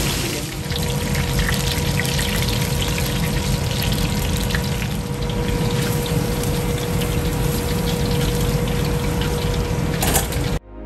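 Ngoh hiang rolls deep-frying in a wok of hot oil: a steady bubbling sizzle with scattered crackles over the low rush of the wok burner. The sound cuts off suddenly near the end.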